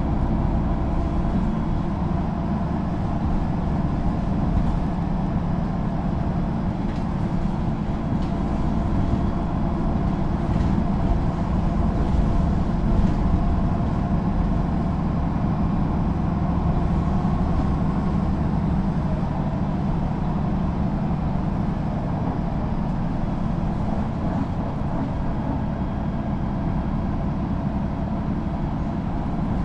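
Mercedes-Benz O530 G II articulated city bus with a Voith automatic gearbox, its engine running with a steady drone and no marked rise or fall in pitch.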